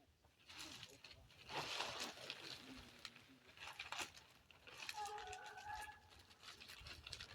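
Crinkling plastic sheeting and clicks as plastic clamps are fitted to hold it on a greenhouse frame, loudest about two seconds in. A short steady-pitched call sounds about five seconds in.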